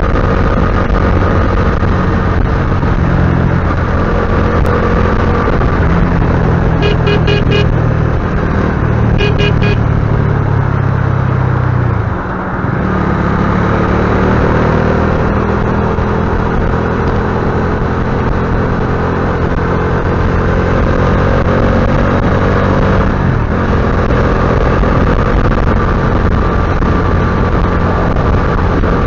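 Motorcycle engine running at highway speed under loud wind and road rush. A horn sounds in two short bursts of quick toots about a third of the way in. Near the middle the engine note falls and briefly dips, then climbs again as the bike speeds back up.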